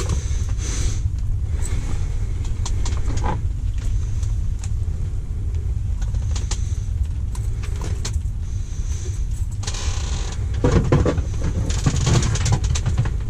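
Short clicks, creaks and rustles of a fish being unhooked by hand with pliers, over a steady low rumble.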